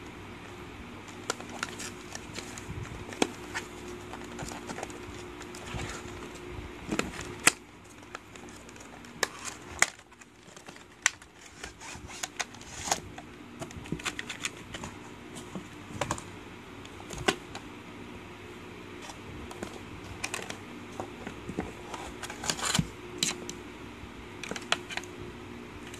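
Cardboard box and clear plastic packaging being handled during unboxing: irregular clicks, taps and crinkles, some sharp, over a steady low hum.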